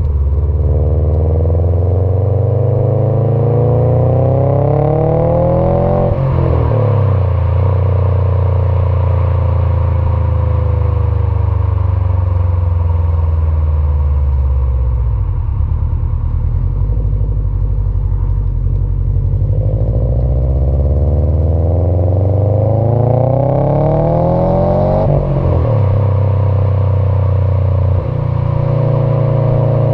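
2018 Subaru STI's turbocharged 2.5-litre flat-four through an Invidia R400 exhaust, pulling through a gear with the pitch climbing to a shift about six seconds in. It then eases off and the pitch slowly falls, before a second pull climbs to another shift near the end.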